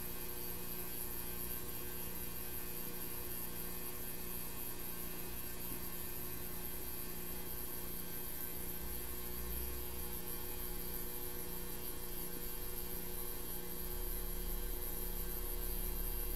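Steady electrical mains hum with a thin high-pitched whine; a low rumble swells slightly near the end.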